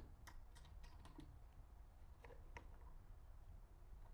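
Faint, scattered light clicks and taps as small drill-press parts are handled and fitted at the foot of the column, several in quick succession at first and a couple more about two seconds in.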